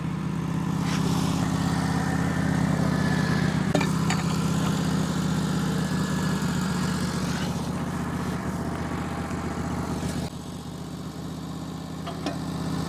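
Wood-Mizer LT15 Go portable sawmill's engine running steadily, dropping a little quieter about ten seconds in.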